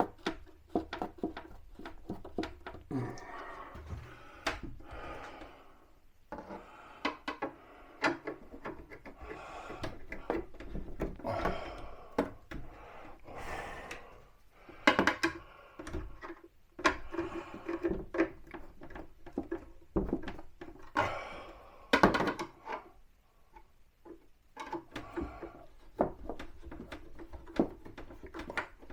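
Irregular wooden knocks, thunks and scrapes of a kitchen wall cabinet being handled and adjusted as it is fitted, with louder knocks about 15 and 22 seconds in.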